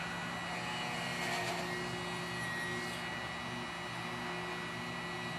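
Small electric drill running steadily with a small bit, boring starter holes for scroll-saw blade threading through wood.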